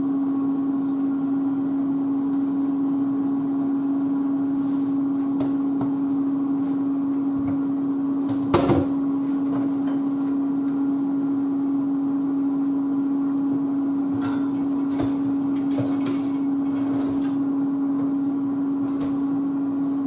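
Steady hum of a running kitchen appliance, with faint clicks of kitchen handling and one louder knock about eight and a half seconds in.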